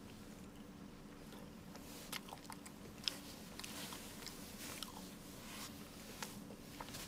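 A person eating bungeoppang, the fish-shaped pastry: quiet chewing with small crunchy clicks from about two seconds in, the sharpest a little after three seconds.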